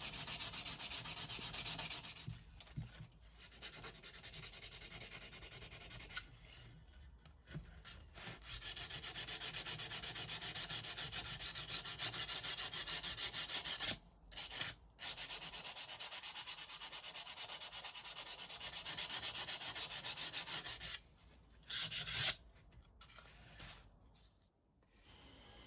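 Sandpaper worked by hand over wood in quick back-and-forth strokes along the grain, stopping and starting several times.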